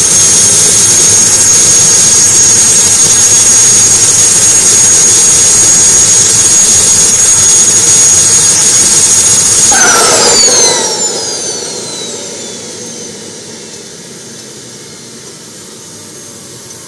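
Small turbine engine of an RC model jet running at a steady high whine. It is shut down about ten seconds in, and the whine falls away as the turbine spools down, leaving a quieter fading hiss.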